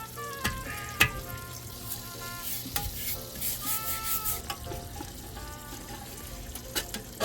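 Parts being scrubbed in a solvent parts washer: crackling and splashing liquid, with a couple of sharp clicks of metal parts, about a second in and near three seconds.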